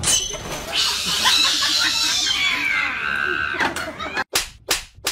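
A high-pitched voice with wavering pitch, then a quick run of five or six sharp smacks near the end.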